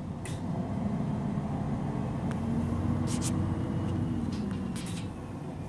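MAN NG313 articulated bus's 12-litre D2866 turbocharged six-cylinder diesel idling while the bus stands still: a steady low rumble with a hum over it that eases off about five seconds in, and a few short clicks.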